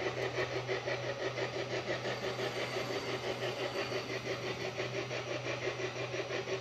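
A motor or engine running steadily with a low hum and a rapid, even pulse, several beats a second.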